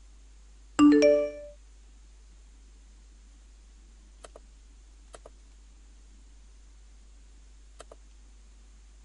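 iTunes completion chime: two quick bell-like notes that ring out briefly, the signal that the AAC conversion has finished. Later, three pairs of faint computer-mouse clicks.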